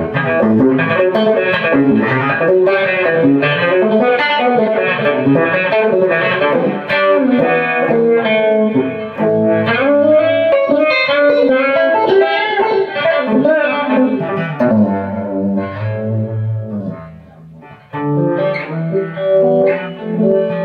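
Seven-string guitar being played, a quick run of single notes and chords. The playing dies down briefly about three-quarters of the way through, then picks up again.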